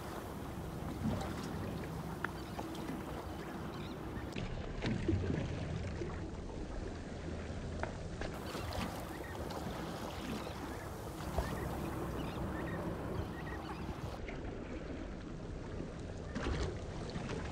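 Water lapping and trickling against the hull of a small boat on a calm sea, with a few faint knocks.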